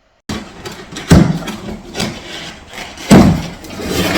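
A flat-packed wooden high chair being unboxed: rustling and clattering of the box and its packaging, with two heavy thuds, about a second in and about three seconds in.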